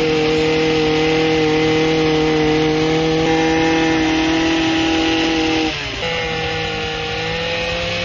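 Small petrol engine of a multi-function garden tool running steadily while its pole hedge trimmer attachment cuts a hedge. About six seconds in, the engine note drops suddenly to a lower, quieter one.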